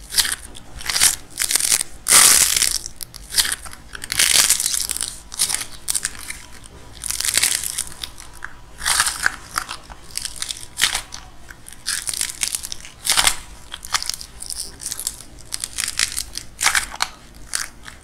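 Dried clay shell cracking and crunching as hands squeeze and tear it apart, with the soft clay underneath crumbling: a string of irregular, crackly crunches, about one every half second to second.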